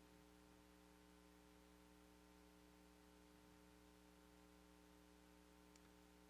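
Near silence: a faint, steady electrical hum in the recording.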